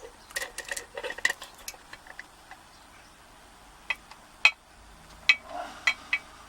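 Small metallic clicks and taps of lock picking tools against a Corbin euro cylinder lock that has just been picked open: a quick cluster of light clicks at first, then a pause, then about five sharp separate clicks near the end.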